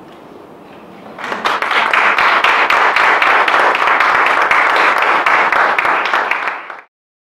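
Audience applauding, starting about a second in and cutting off abruptly near the end.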